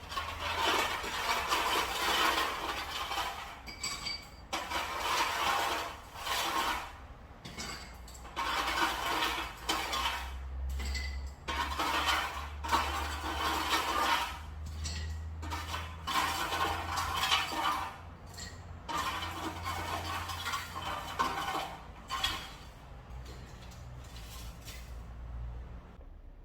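Water running from a kitchen tap in repeated on-off bursts of a second or two, with occasional clinks of dishes.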